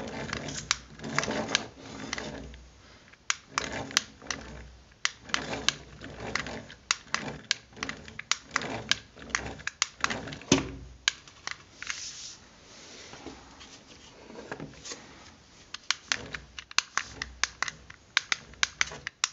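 Rapid, irregular clicking and tapping from a hand working a toy remote control and handling a homemade cardboard RC car.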